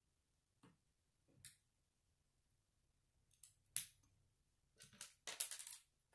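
Small plastic Lego bricks clicking and tapping as they are handled on a wooden tabletop and pressed together: a few scattered clicks, then a quick rattling cluster of clicks near the end.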